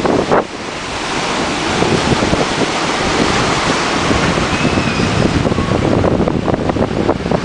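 Ocean surf washing and churning around rocks, a steady rushing of water, with wind buffeting the microphone.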